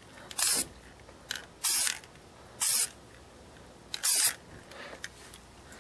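Aerosol can of flat OD green spray paint giving four short sprays, each about a quarter second long and roughly a second apart.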